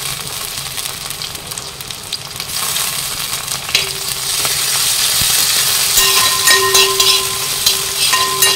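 Sliced onion, ginger and crushed garlic sizzling in hot coconut oil in an uruli as they are stirred and sautéed. The sizzle grows louder about a third of the way in, and in the second half there are clinks and scrapes against the pot.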